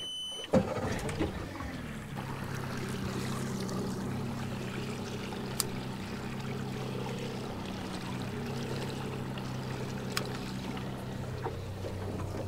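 Boat outboard motor starting about half a second in, then running steadily at a low trolling speed.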